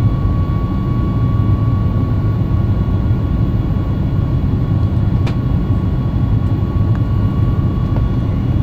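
Cabin noise of a Boeing 737 MAX 8 climbing out after takeoff: its CFM LEAP-1B jet engines and the airflow make a steady, loud, low rumble. A steady high whine fades out about halfway through, and there is one faint click a little past five seconds in.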